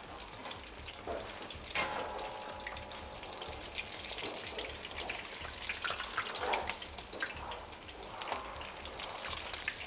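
Whole batter-dusted pomfret deep-frying in hot oil in a large wok: a steady, dense crackling sizzle. A single sharp click with a short ring sounds near two seconds in.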